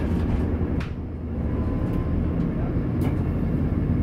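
A train running along the track: a steady low rumble, with two sharp clicks about two seconds apart.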